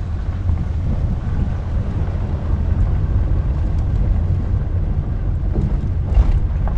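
Vehicle driving slowly, a steady low rumble of engine and road noise heard from inside the cabin.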